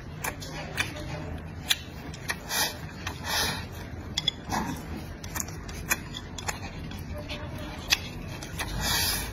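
Close-miked eating: a man chewing with lip smacks and sharp clicks, with three louder slurping rushes as rice and pork are shovelled from a bowl to his mouth with chopsticks.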